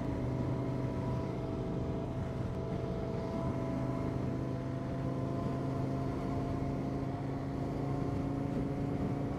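KTM 1090 Adventure R's V-twin engine running at a steady cruising pace, with wind and road noise.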